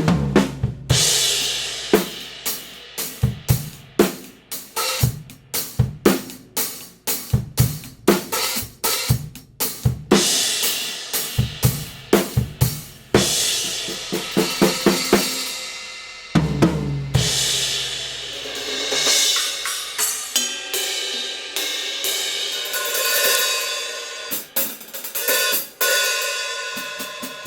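Drum kit played with Kingdo Artist Dark B20 bronze cymbals, hi-hats and crashes struck among snare and bass drum hits. Quick, dense strokes fill the first part; after a heavy hit about two-thirds of the way in, the cymbals are left ringing in a long wash.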